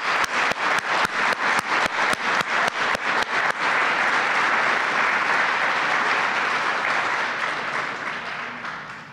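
Audience applauding. For the first few seconds single claps stand out at about four a second, then the clapping thickens into an even wash and fades away near the end.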